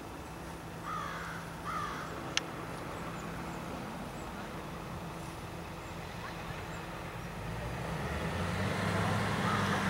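Outdoor ambience: a steady low hum of distant traffic that swells toward the end, with two short bird calls about a second in and a single sharp click just after.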